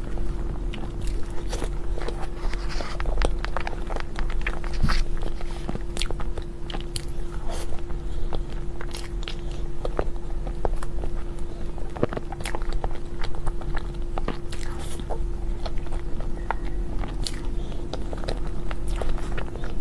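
Close-miked eating sounds of someone biting and chewing dessert: many small irregular mouth clicks, over a steady low hum.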